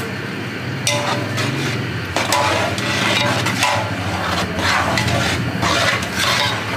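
Metal slotted spoon stirring and scraping semolina through hot oil in a large metal pot, as the semolina starts to roast for halwa. The strokes are irregular and begin about two seconds in, over a low steady hum.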